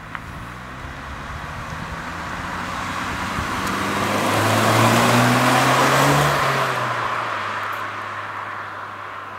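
Audi S1's 2.0 TFSI turbocharged four-cylinder accelerating past: the engine note climbs in pitch and loudness as the car approaches, peaks about five to six seconds in, then drops in pitch and fades as it moves away.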